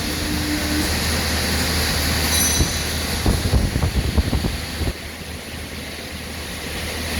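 Turbocharged Mazda FC RX-7 rotary engine running at low speed with a steady low drone. About halfway through there is a run of irregular pops and cracks, and then it settles quieter.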